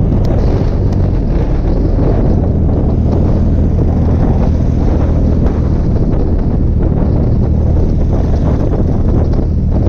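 Cruiser motorcycle's engine running steadily at highway cruising speed, with wind noise on the handlebar-mounted microphone.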